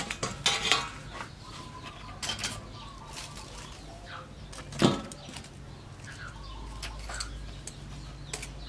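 Metal tongs clicking and scraping against a wok and a metal tray as syrup-glazed fried dough rings are lifted and set down, with one louder clank about five seconds in.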